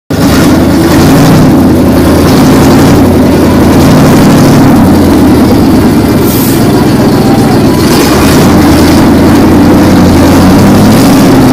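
Monster truck engine running steadily at low revs, loud, as the truck rolls slowly across pavement.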